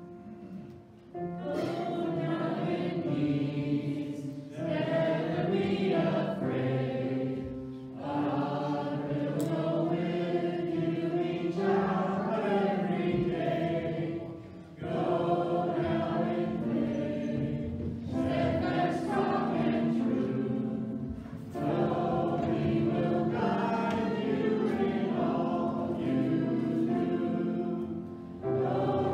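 A group of voices singing a slow hymn in long held phrases, with short breaths between the lines.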